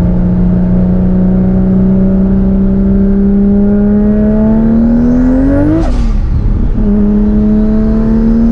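Toyota Supra's 1200 hp single-turbo 2JZ straight-six pulling under boost, its note climbing steadily while a high turbo whistle rises with it. About six seconds in the note breaks off with a short crackle, then picks up again lower and climbs once more with the turbo whistle.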